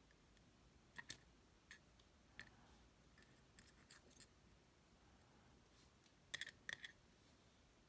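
Faint, scattered small metallic clicks as the Titan T250 dimple lock is handled and its wafer sliders are taken out one by one. There are a few single clicks in the first couple of seconds and a quick cluster of them near the end.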